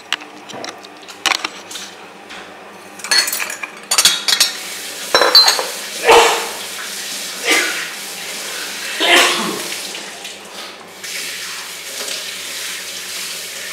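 Kitchenware clattering: a steel saucepan and ceramic crockery knocking and scraping on the gas stove and counter in a string of irregular clinks and clanks, with some running water, steadier near the end.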